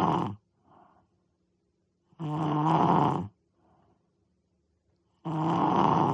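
Loud, rasping snoring in a steady rhythm. One snore ends just after the start, then two more, each about a second long, come roughly three seconds apart, with faint breaths between them.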